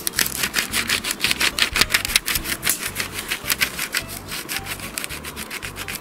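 Quick back-and-forth scratchy strokes of a drawing tool scribbling over paper pressed against tree bark, making a bark rubbing. The strokes come several times a second, heaviest in the first couple of seconds, then lighter.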